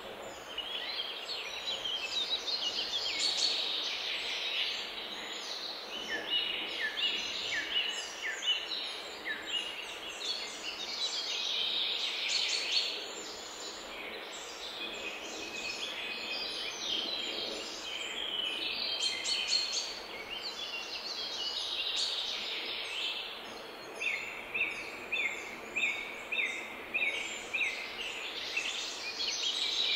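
Several small birds chirping and singing without a break, with a run of evenly repeated short notes near the end.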